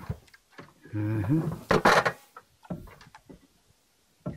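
Clicking of an LPG gas stove's igniter knob, turned repeatedly while the burner fails to light. About a second in there is a short low hum, and just before two seconds a loud hiss-like noise lasting about half a second.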